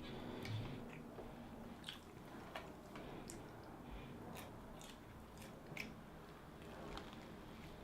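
A person chewing mouthfuls of a Jimmy John's sandwich on French bread, with scattered sharp wet mouth clicks throughout.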